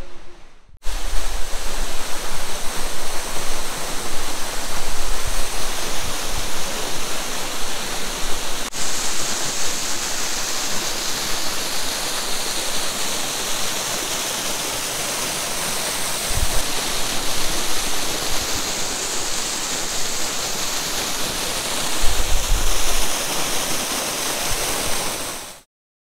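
Waterfall pouring off a rock overhang and splashing into a pool: a steady, dense rushing of falling water that starts abruptly about a second in and cuts off just before the end.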